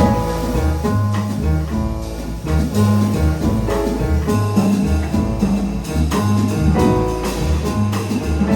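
Jazz piano trio playing: piano chords over a bass line that changes note about twice a second, with drum kit and cymbal strokes.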